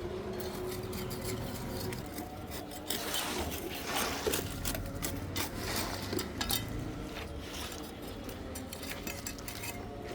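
Irregular metallic clinks and knocks of hand tools and metal being worked during construction of a concrete column kicker, with a denser, noisier patch about three to four seconds in.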